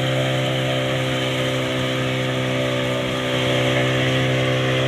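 A boat engine runs at a steady speed under way, a constant engine drone with a slight rise in loudness a little past halfway.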